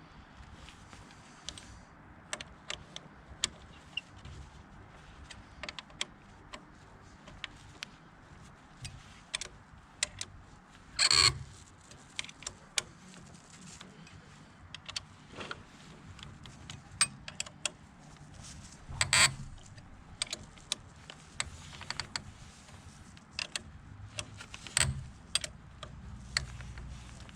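Hand tools and metal parts clinking and clicking on the motorcycle's upper fork yoke during reassembly. There are many short scattered clicks, with two louder metallic clatters about eleven and nineteen seconds in.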